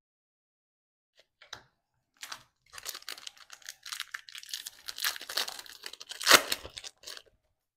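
Wrapper of a football trading card pack being crinkled and torn open by hand: a run of rustles and tearing starting about a second and a half in, with the loudest tear near the end.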